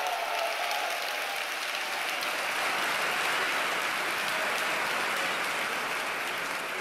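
Large crowd applauding steadily, easing off slightly near the end.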